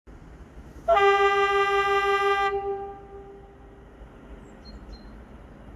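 A locomotive horn sounds one long steady note about a second in, held for about a second and a half, then echoes away. A few faint high chirps come near the end.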